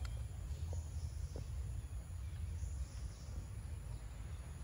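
Outdoor ambience: a steady low rumble, with faint, short high bird chirps now and then and a few soft clicks.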